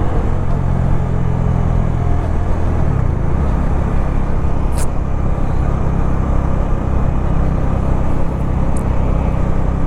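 Bajaj Dominar 400's single-cylinder engine running steadily at highway cruise, with wind and road noise over it. The engine note shifts about three seconds in.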